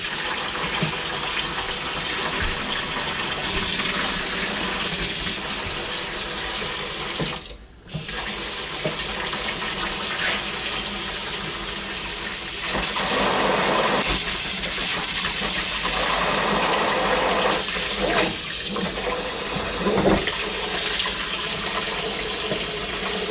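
Water running from a newly installed pull-down kitchen faucet into a stainless steel sink, shut off briefly about seven and a half seconds in, then turned back on, the flow getting louder and softer as the handle is worked.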